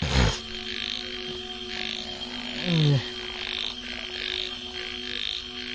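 Frogs calling in a night chorus, about two calls a second, over a steady hum. A sharp click comes at the start, and a loud, short, falling voice-like sound about three seconds in.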